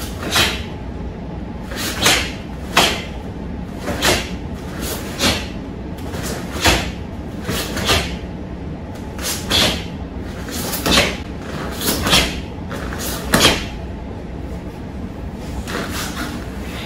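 Karate uniform (gi) snapping sharply with the punches and blocks of a kata: about a dozen short snaps spaced roughly a second apart, a few in quick pairs, over a steady room hum.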